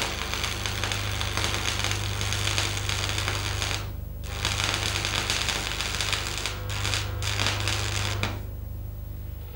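Stick-welding arc crackling with the current set slightly too low for the electrode. It cuts out for about half a second around four seconds in, stutters briefly twice more, and stops shortly before the end. A steady low hum runs underneath.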